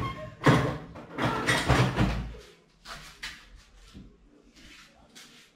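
Kitchen utensils being picked up and handled, with a run of loud knocks and scrapes over the first two seconds, then a few fainter clunks.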